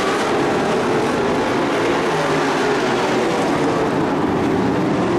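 Engines of dirt-track racing trucks running hard at speed, a loud steady engine noise that holds without a break.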